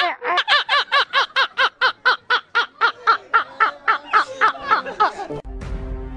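High-pitched laughter: a rapid, very even run of short 'ha' syllables, each rising and falling in pitch, about five a second, cutting off abruptly a little over five seconds in.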